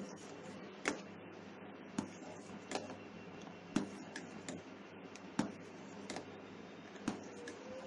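A metal spoon knocking against the side of a pot about once a second while stirring milk as it boils, over a steady low hiss.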